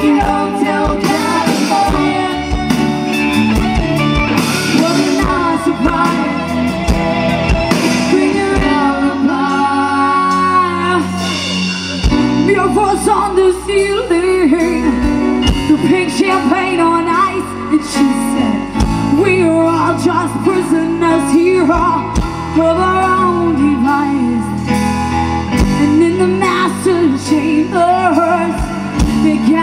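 Live rock band playing loud through a PA: a woman sings over electric guitar, bass guitar, keyboards and drums.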